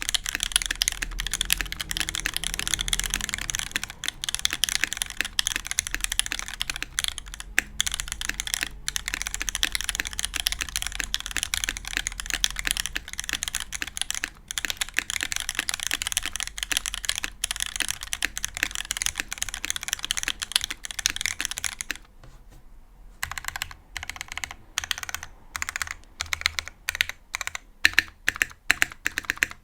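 Typing on a custom mechanical keyboard: lubed Gateron Ink Black V2 linear switches with Milky tops, top-mounted on a stiff 2mm brass plate, with GMK keycaps. Fast, continuous keystrokes for most of the time, then a brief pause about three quarters through and slower, separate key presses.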